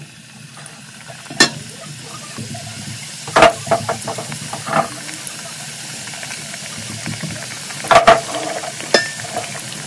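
Samosas deep-frying in a pot of hot oil: a steady sizzle of bubbling oil that grows stronger, broken by a few sharp knocks and clicks, the loudest about three and a half seconds in and again about eight seconds in.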